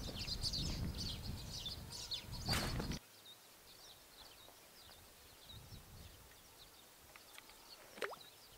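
Small birds chirping, many short high calls repeated throughout. For the first three seconds a low wind rumble on the microphone runs under them; after that it stops suddenly and the chirps go on faintly.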